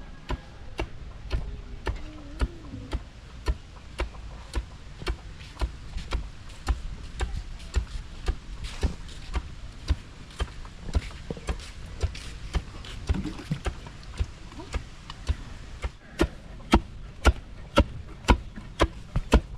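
Steady rhythmic knocks of a hand tool striking something, about two a second, getting louder and more even near the end.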